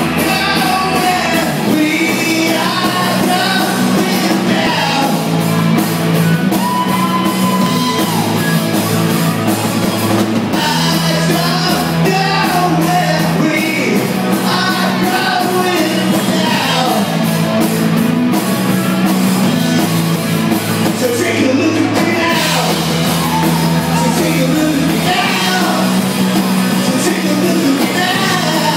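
Live rock band playing loudly: drum kit, electric bass and electric guitar, with a singer on vocals.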